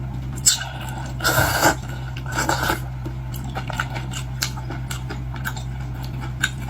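Scattered clicks and brief scrapes of tableware and food being handled while eating, over a steady low hum.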